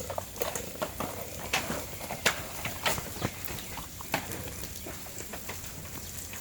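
A run of irregular knocks and clatters, several a second over the first four seconds, then fewer and fainter, over a steady background hiss.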